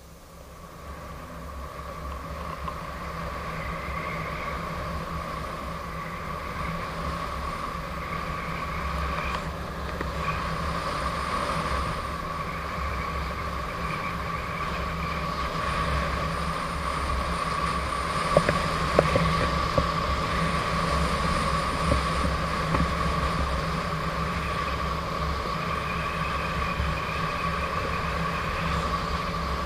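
Gotway MSP electric unicycle riding along at speed: a steady motor whine over a low rumble of wind and road noise, building up over the first couple of seconds. A few sharp knocks come about two-thirds of the way through.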